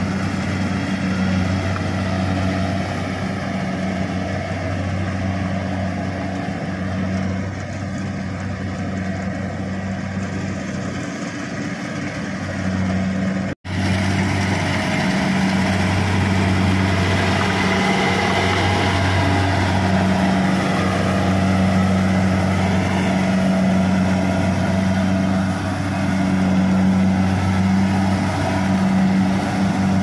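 Kubota DC-70 Pro combine harvester's diesel engine running steadily with a low hum while it harvests, the sound dropping out for an instant about halfway through.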